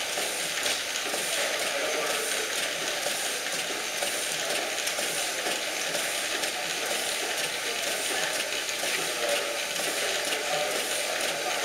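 Horizontal stationary steam engine running, steam hissing steadily from around its cylinder, with a faint regular beat from the engine's strokes.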